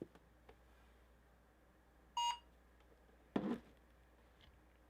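A single short electronic beep about two seconds in, followed a second later by a brief muffled sound, over a low steady hum.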